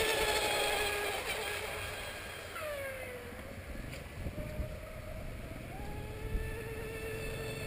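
Electric radio-controlled rigger race boat running at speed on the water: a thin motor whine that drops in pitch about two and a half seconds in, then climbs again near six seconds as the boat picks up speed.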